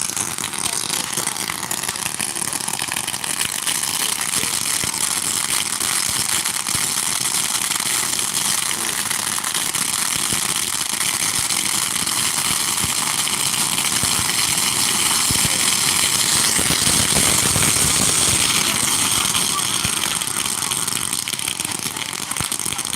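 Dense, continuous crackling of fireworks and firecrackers going off all around, many small pops running together, building to its loudest about two-thirds of the way through, then easing off near the end.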